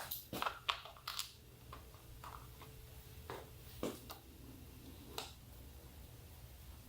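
Sharp clicks and knocks of a plastic motorcycle body cover being handled and fitted back into place: a quick cluster of them at the start, then three single knocks spaced about a second apart.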